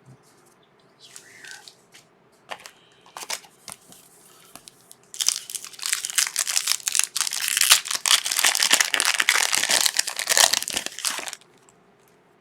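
A trading-card pack wrapper being torn open and crinkled, a loud dense crackle from about five seconds in that stops abruptly near the end. A few light taps of cards being handled come before it.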